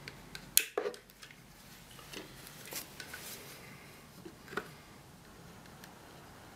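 Caulk gun being worked while it lays a bead through a copper-tube extension: scattered sharp clicks and knocks, the loudest about half a second in, over a faint steady background.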